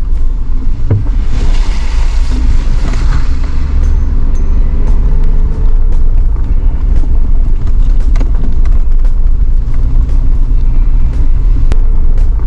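Four-wheel-drive vehicle driving on a gravel dirt road: a steady low rumble of engine and tyres, with frequent small clicks and rattles, and a stretch of hiss about one to four seconds in.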